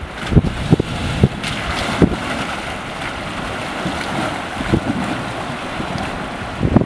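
Toyota Land Cruiser Prado SUV wading through a shallow, fast river, with water swishing and splashing around its wheels over the river's steady rush. Gusts of wind buffet the microphone with low thumps, strongest in the first two seconds and again near the end.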